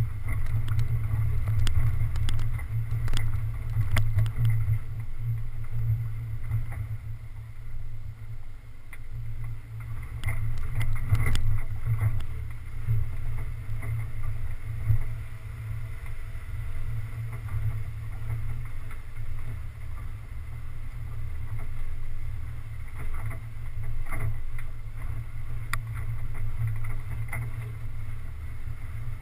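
Low, muffled rumble of an off-road 4x4 driving slowly over a rough dirt trail, with occasional knocks and rattles as it goes over bumps.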